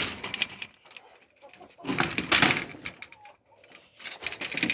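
Grass being pulled up by hand, rustling and tearing in three noisy bursts about two seconds apart.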